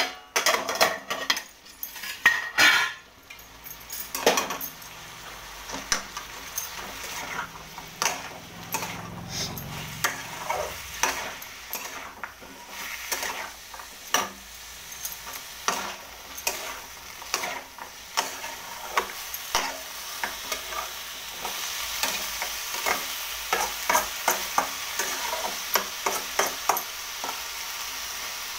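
A metal cooking spoon stirs and scrapes a curry of bottle gourd and peas in a pot, clinking against the pan many times, loudest in the first few seconds. The curry sizzles underneath, and the sizzle grows stronger in the second half.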